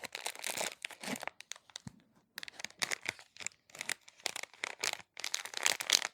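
Plastic candy packaging being handled, rustling and crinkling in irregular crackles.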